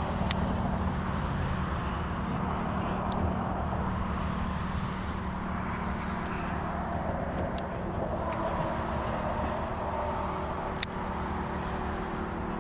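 An engine running steadily under way, a low continuous drone with rushing noise over it and a few faint clicks.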